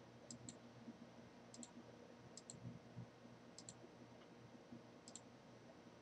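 Faint computer mouse clicks, five quick press-and-release pairs about a second apart, over a low steady room hum.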